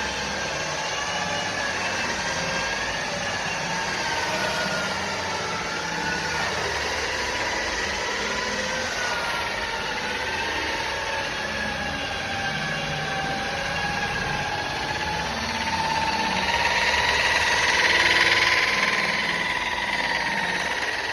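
Electric rotary polisher running steadily while compounding car paint, its motor whine wavering slightly in pitch as the pad is worked. The whine grows louder and hissier for a few seconds about three-quarters of the way in.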